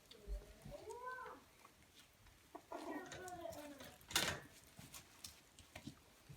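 Miniature schnauzer puppies whimpering: two short, high, arching squeaky cries, one near the start and one about three seconds in. A sharp knock about four seconds in is the loudest sound.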